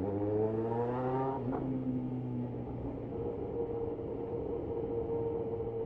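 Yamaha XJ6 motorcycle's inline-four engine pulling under way: its note climbs for about the first second and a half as it accelerates, then holds steady while cruising.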